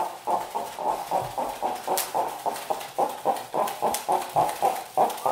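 Push-along toy duck quacking as it is rolled across the floor, a rapid, even run of quacks about four a second. A single sharp click comes about two seconds in.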